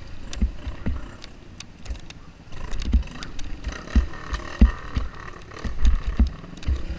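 Enduro dirt bike engine running under the rider's throttle on rough terrain, heard through a helmet camera's microphone. Frequent low knocks and wind buffeting from the bumpy ride hit the microphone irregularly.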